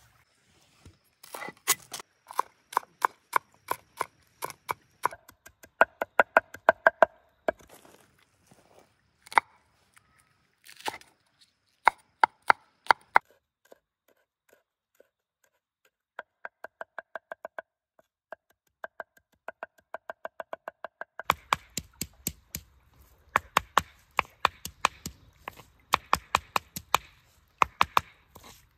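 Repeated sharp chopping strikes, a few a second, each with a slight ringing tone, pausing briefly midway. In the last stretch a blade chops fresh green herbs on a flat stone, with a low rush of stream water underneath.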